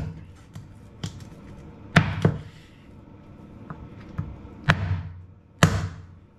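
Black Dragon butcher's cleaver chopping through pork rib bones onto a plastic cutting board: sharp, separate chops at an uneven pace, four hard ones with two close together about two seconds in, and lighter taps between them.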